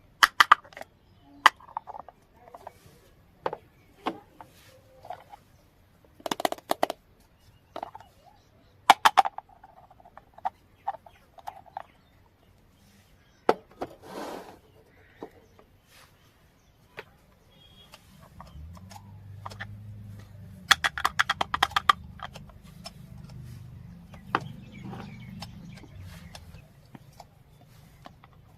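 Small toy kitchen pieces being unpacked and handled: irregular sharp clicks, taps and brief clinks, some in quick clusters of several strokes. A faint low hum joins in from a little past the middle and stops a few seconds before the end.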